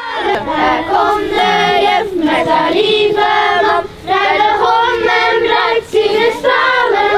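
Children's voices singing a song together, one melody in sung phrases with short breaks.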